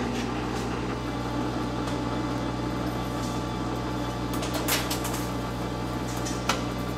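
Metal lathe running with the half nuts engaged, the lead screw driving the carriage while a single-point threading tool takes a deep cut into the steel workpiece. It gives a steady machine hum, with two short clicks in the second half.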